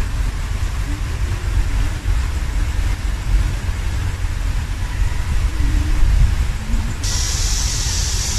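Wind buffeting the microphone: a steady low rumble, with a hiss coming in suddenly near the end.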